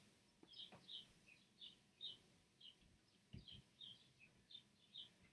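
Near silence, with faint, short, high bird chirps repeating about twice a second.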